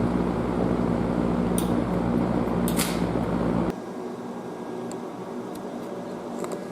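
Welding arc crackling and sizzling on an exhaust pipe joint over a steady hum, with a few sharp pops, stopping abruptly a little over halfway through and leaving a quieter steady hum.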